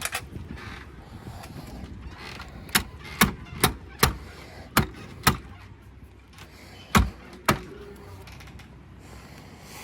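A series of about eight sharp metallic clicks and knocks, some in quick pairs, from door hardware being handled and fitted.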